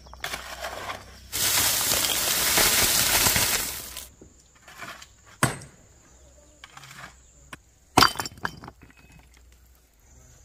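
Loose rocks clattering and sliding for about two and a half seconds. Then come two sharp knocks of rock a few seconds apart, with a few lighter clicks between them.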